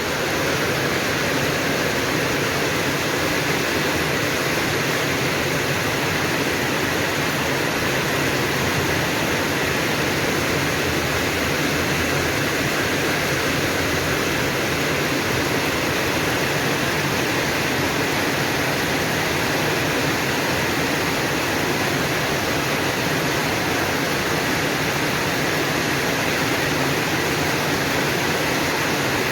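Heavy rain falling during a storm, a steady even hiss.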